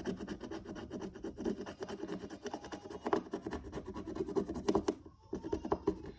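Rapid scratching at a scratch-off sticker, many quick back-and-forth strokes that slacken about five seconds in, followed by a few last scrapes.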